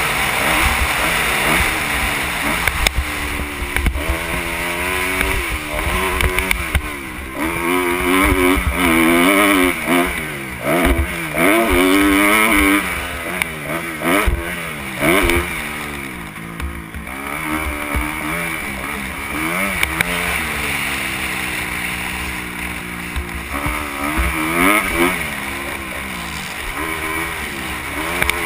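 Kawasaki KX250 motocross bike's engine revving hard and dropping back over and over as it is ridden around the track, the pitch climbing with each burst of throttle and falling at each shift or roll-off, with a brief easing off about two-thirds of the way through. Heard from a helmet-mounted camera, with wind rushing over the microphone.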